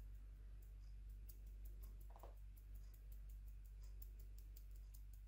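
Faint, rapid, evenly spaced clicking, about five clicks a second, starting about a second in, over a low steady hum.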